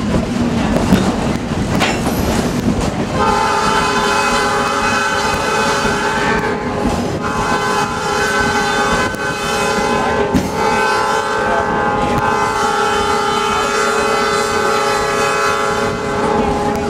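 A locomotive air horn blows the grade-crossing signal: two long blasts, a short one, then a long one, each a chord of several steady tones. Under it, the passenger car rumbles slowly along the rails.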